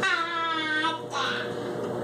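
A young child's voice: one drawn-out, sing-song vowel of about a second, sliding slightly down in pitch.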